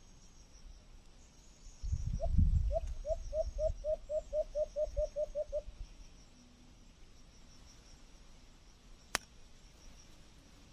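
Insects chirring steadily in the background. About two seconds in comes a run of around a dozen short rising calls, roughly four a second, over a few low bumps, ending near five and a half seconds. A single sharp click follows near the end.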